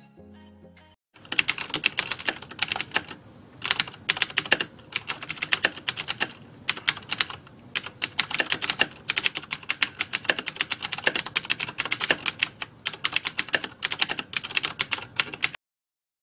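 Rapid typing clicks, a typing sound effect, running in quick runs with short pauses and stopping abruptly just before the end. A few soft music notes fade out in the first second.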